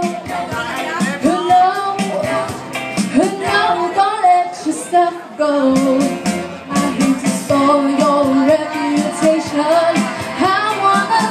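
Female vocalist singing live through a microphone and PA, holding long melodic notes over backing music with a steady beat.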